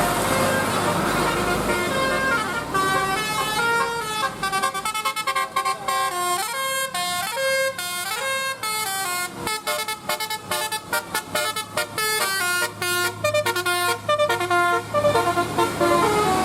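Bus 'telolet' multi-tone horn playing a quick melody of stepped notes that change several times a second, starting about three seconds in and stopping near the end. Beneath it, a bus engine running and road noise.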